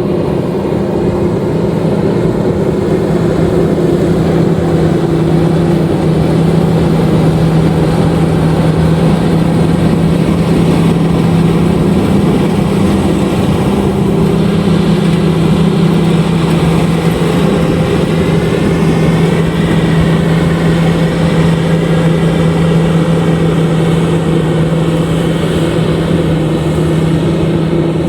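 LOVOL RG130EVO rice combine harvester running steadily under load as it harvests, a loud, even engine hum under the clatter of its machinery.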